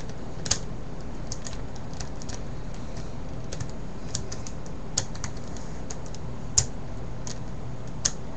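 Plastic 4x4 puzzle cube (V-Cube 4) being twisted and handled: irregular light clicks and clacks of its layers and pieces turning, with a few sharper clacks, the loudest about two-thirds of the way through.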